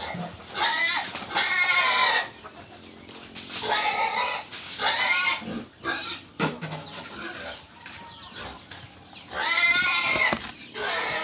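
Pigs squealing: a string of about five drawn-out, wavering squeals, with a quieter gap in the middle before a last squeal near the end.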